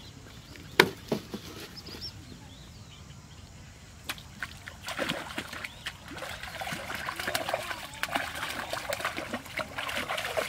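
Water splashing and trickling in a dense crackling run from about halfway in, as a hooked fish thrashes at the surface of a shallow canal while it is pulled in on a rod. One sharp knock sounds about a second in.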